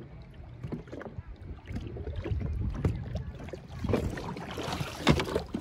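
Lake water lapping and slapping against the hull of a small watercraft, irregular and uneven, getting louder partway through, with one sharper splash or knock about five seconds in.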